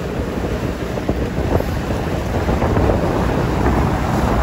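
Wind buffeting the microphone in a steady low rumble, over the wash and splash of choppy seawater.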